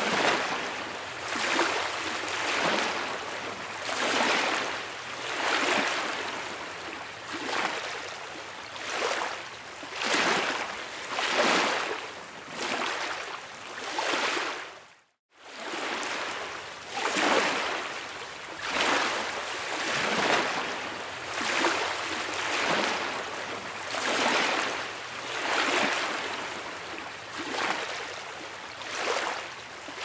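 Small lake waves lapping gently against rocks, a wash of water about every second and a half, broken by a brief moment of silence about halfway through.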